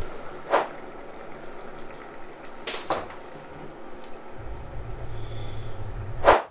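Vegetable stew in coconut milk simmering in a stainless steel pot, with a few short swishes and pot clatter as peas and then couscous are tipped in, the last near the end the loudest.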